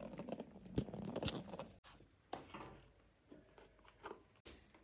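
Kittens moving about on a tiled floor and around plastic toys: soft rustles, taps and small clicks, busiest in the first two seconds and sparser after, with two brief dropouts.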